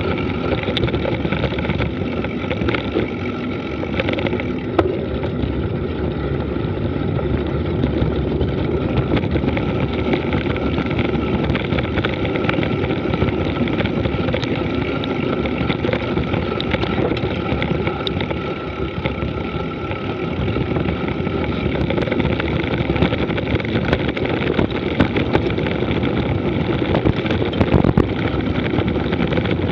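Mountain bike descending a loose, stony dirt road at speed: wind rushing over the microphone with the tyres rolling and rattling over gravel, a steady dense rush broken by scattered sharp clicks and knocks.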